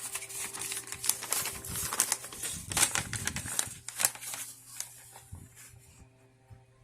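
Irregular clicks, knocks and rattles of an old wall-mount rotary telephone being handled as its housing is worked open, dying away about five seconds in.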